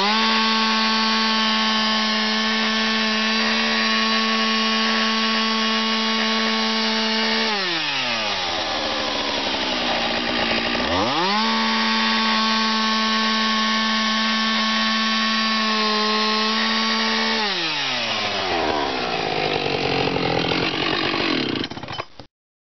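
Two-stroke chainsaw with a Morticesafe attachment running at full throttle as its bar nose plunges into a timber fence post to cut a mortise. It drops to idle about seven and a half seconds in, revs up again for a second stretch of cutting about three seconds later, then falls back to idle before the sound cuts off suddenly near the end.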